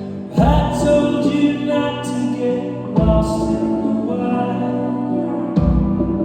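Live band music: a sung melody over held chords, punctuated by three heavy low hits about two and a half seconds apart.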